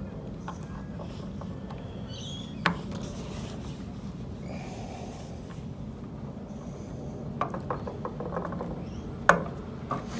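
Small clicks and knocks from a car relay and multimeter test leads being handled on a wooden table: one sharp click about two and a half seconds in, a run of light clicks later, and the loudest click shortly before the end. A steady low rumble runs underneath.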